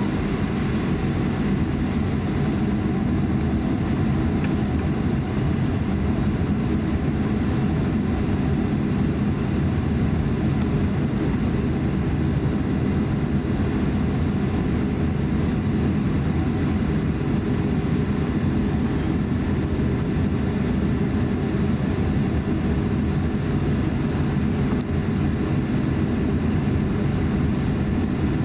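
Cabin noise of a Boeing 737-900 taxiing: a steady low rumble from its engines at taxi power, with a faint steady high whine.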